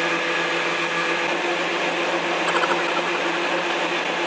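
KitchenAid Heavy Duty stand mixer running steadily, its wire whip beating egg whites into meringue, with an even pitched motor hum. A few quick light clicks about halfway through.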